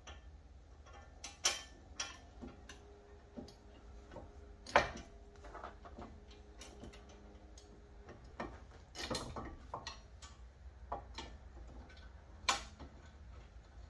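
Irregular metal clicks and knocks of hand tools working on a brake caliper's bolts, with a few louder knocks among lighter ticks.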